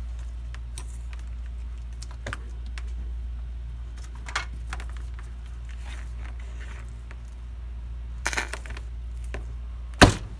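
A PS4 power supply circuit board being handled and moved on a workbench: scattered light clicks and taps, a short cluster of them near the end, then one sharp knock as the board is picked up or set down. A steady low hum runs underneath.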